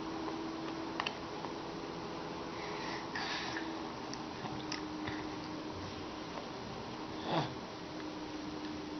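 A baby's small sniffs and mouth noises over a steady low hum, with one short, louder sound about seven seconds in.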